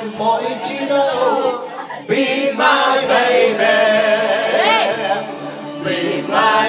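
Karaoke: a voice singing over backing music, with hands clapping in time about twice a second.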